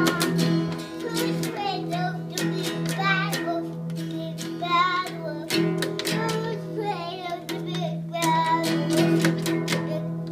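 A young child strumming the open strings of a small acoustic guitar over and over, the same unchanged chord ringing throughout, while singing along in a high voice.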